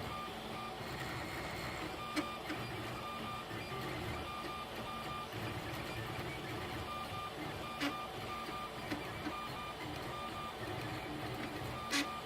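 FDM 3D printer printing in ABS: its stepper motors whine in short tones that keep breaking off and restarting as the print head shuttles back and forth, over a steady mechanical hum. Three sharp clicks stand out, about two seconds in, about eight seconds in and near the end.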